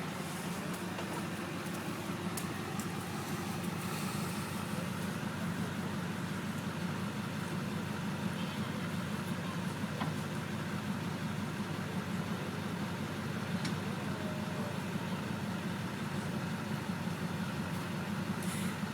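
Tow truck engine idling steadily.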